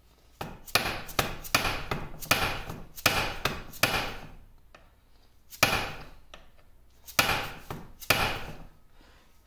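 Hammer blows on a steel pin punch, driving a taper pin out of a shaft in a cast-iron lathe apron. There is a quick run of about a dozen sharp, ringing strikes, roughly three a second, then three slower blows near the end. The pin is stuck tight and does not move.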